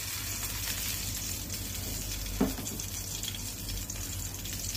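Ghee sizzling in a hot pan as it melts: a soft, steady crackle. A brief knock sounds about halfway through.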